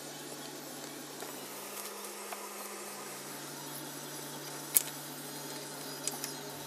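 Clicks of a rocker arm and other metal parts being handled and set into the Yamaha Raptor 700R's open cylinder head: one sharp click a little under five seconds in and two lighter ones near the end, over a steady low hum.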